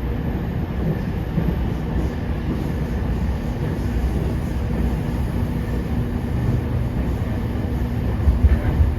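JR East 209 series 500 subseries electric train running at speed, heard from inside the car: a steady rumble of wheels on rail with a faint steady hum. A few louder knocks come near the end.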